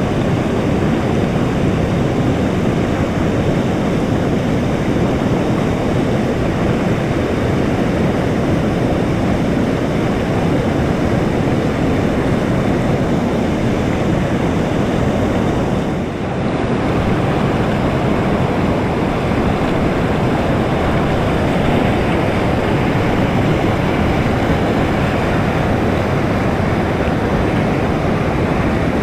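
Loud, steady rush of river whitewater running through rapids, with a brief dip about halfway through.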